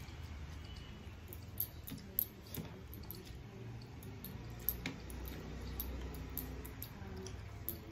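Wet squishing of fingers mashing and mixing rice with fish curry on plates by hand, with scattered soft clicks, over a low steady hum.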